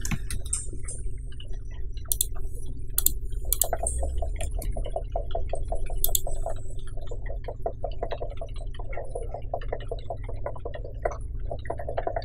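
Computer keyboard keys and mouse clicks tapping irregularly, with a few sharper clicks in the first half, over a steady low hum.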